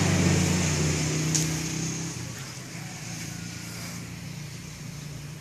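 A motor vehicle engine running: a low, even hum that fades over the first two seconds, then holds quieter and steady. There is a short light click about a second and a half in.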